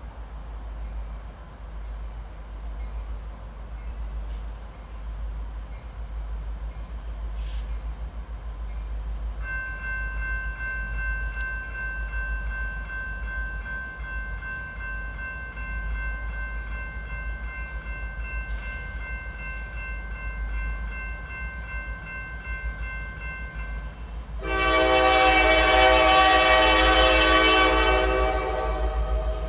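A Norfolk Southern freight locomotive's air horn sounding as the train approaches: a faint steady multi-note tone for about fifteen seconds, then a loud blast of about three seconds near the end. A steady low rumble runs underneath.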